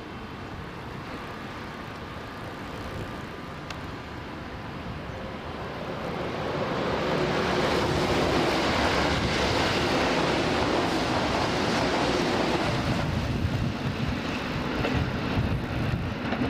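Electric commuter train running past the platform: its rumble builds about six seconds in, stays loud for several seconds, then eases off as the train moves away.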